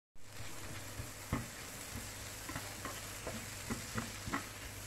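A spatula stirring chopped tomatoes into onion masala frying in a nonstick pan: a steady sizzle with irregular scrapes and taps of the spatula against the pan. The sound cuts in after a brief silence at the very start.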